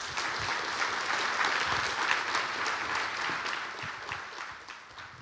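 Audience applauding. The applause builds to its loudest about two seconds in, then gradually fades.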